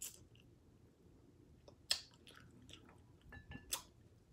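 A person eating close to the microphone: chewing, with three sharp mouth clicks or smacks about a second in, near the middle and near the end, and a few fainter ones between.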